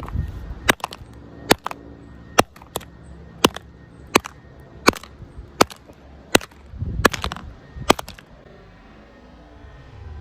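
Hammer striking an iPhone 7 again and again, a dozen or so sharp hits at about three every two seconds, stopping a couple of seconds before the end.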